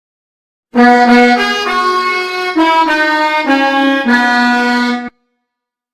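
Pianika (melodica) playing a short melody of the Basuri telolet bus-horn tune: several held reedy notes, changing every half-second or so, that start about a second in and cut off abruptly about four seconds later.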